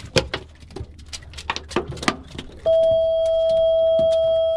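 A run of sharp knocks and taps, then a loud steady electronic beep at one pitch that holds for about two seconds.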